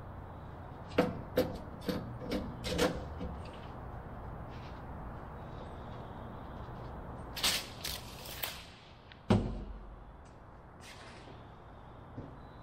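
A tape measure handled against the plywood of a wooden aircraft fuselage: about five light, ringing knocks in quick succession, a few short rustles, then one sharp thump about nine seconds in, as the tape measure is set down on the wooden deck.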